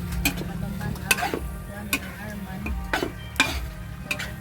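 Stir-fry in a wok: the cooking utensil scrapes and knocks against the pan several times, about once a second, over the sizzle of frying food.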